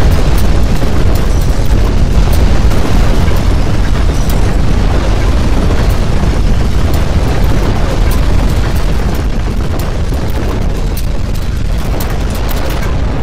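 Strong earthquake shaking: a loud, continuous deep rumble with scattered rattles and clatters over it, easing slightly in the last few seconds.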